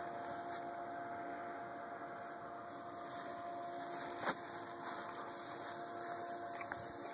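Steady outdoor background hiss with a faint steady hum, and one short sharp click about four seconds in.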